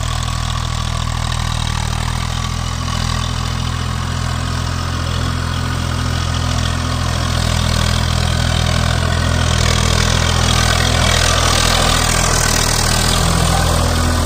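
Swaraj 744 FE tractor's three-cylinder diesel engine running steadily as it tows a fully loaded trolley, growing louder as it comes close and passes, from about nine seconds in.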